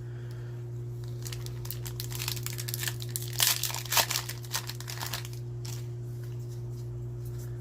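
Foil Magic: The Gathering booster pack wrapper crinkling and tearing as it is ripped open by hand, in a quick run of crackles that is busiest in the middle.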